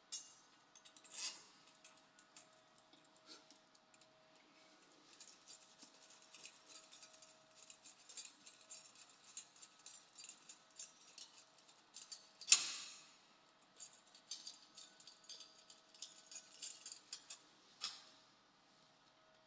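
Screws being driven by hand to fix a video doorbell's mounting hanger to an electrical box: a run of small metallic clicks and scrapes, with one louder clatter about two-thirds of the way through.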